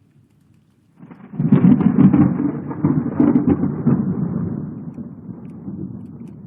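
A thunderclap: a sudden crack about a second in, then a crackling, deep rumble that slowly dies away.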